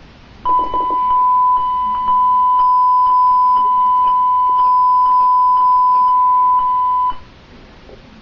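Honeywell alarm keypad's sounder giving its panic alarm: one continuous high beep held for about six and a half seconds, with a faint tick about twice a second, then cutting off suddenly.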